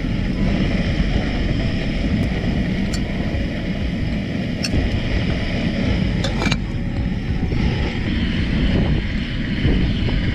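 Portable gas camping stove burner making a steady roar under a small aluminium cook pot, with a few sharp metal clinks as the pot lid is lifted and tongs work in the pot.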